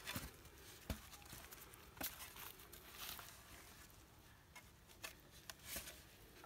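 Faint crumbling and rustling of damp soil as clods are broken apart by hand and turned with a shovel, with a few soft, scattered crunches.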